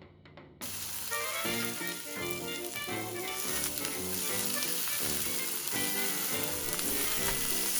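Smashed beef burger patties sizzling in olive oil in a frying pan. The sizzle starts suddenly about half a second in and then holds steady.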